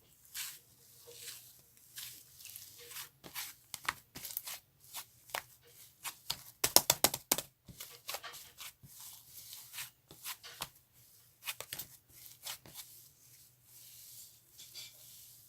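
Cloud slime being stretched and pulled apart by hand, making soft tearing crackles in irregular runs; a dense burst of crackling about seven seconds in is the loudest part.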